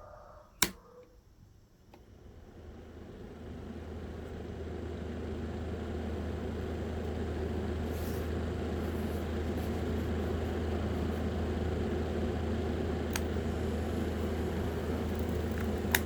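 A sharp click, then a small electric fan motor in a homemade model air conditioner spins up over a few seconds and runs with a steady hum. Two more sharp clicks come later.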